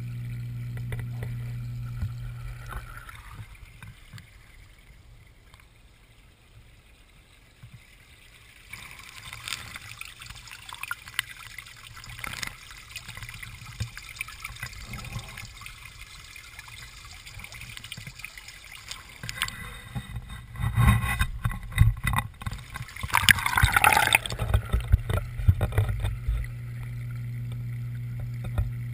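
Pond water sounds heard through a handheld underwater camera. A steady low hum sounds underwater, fades within the first few seconds as the microphone comes out, and returns near the end once it is submerged again. In between there is trickling and gurgling water, with a run of loud splashes and knocks about three-quarters of the way through as the camera is handled and plunged back in.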